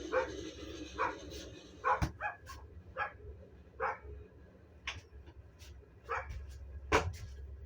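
A dog barking repeatedly, in short single barks about once a second, the loudest near the end.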